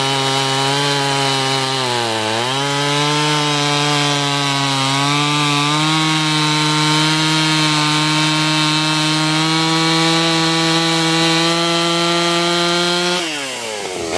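Pioneer P45 72cc two-stroke chainsaw running at high revs while cutting wood. Its pitch sags briefly about two seconds in, climbs slowly as the cut goes on, then falls off sharply near the end as the throttle is released.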